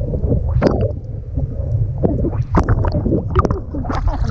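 Water sloshing and gurgling against a GoPro held half-submerged at the surface, with a steady low rumble and irregular splashes.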